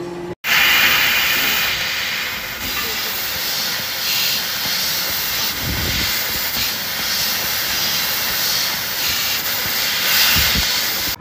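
Laser head working along a square steel tube, with a loud, steady hiss of gas from the nozzle. Two short low thuds come through, about six and ten seconds in.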